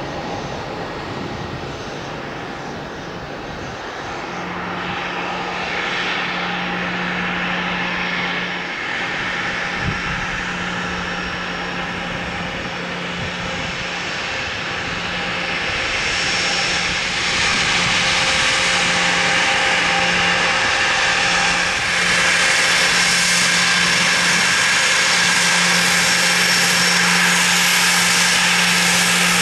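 Business jet's twin rear-mounted turbofan engines running at taxi power: a steady whine and hiss with a low hum, growing louder around the middle.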